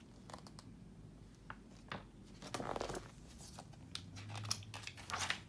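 Pages of a picture book being handled and turned: faint, intermittent paper rustling and light taps, with a longer rustle about two and a half seconds in.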